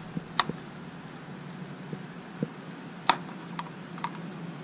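Small metal parts clicking and tapping as a new condenser is worked into its bracket in a Delco distributor beside the points: a handful of scattered sharp clicks, the loudest about three seconds in.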